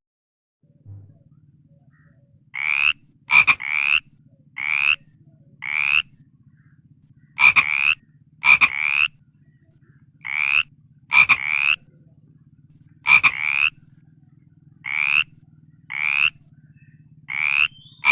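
An animal calling over and over: short rising calls, about one a second and often in pairs, over a steady low hum, with a few sharp clicks among them.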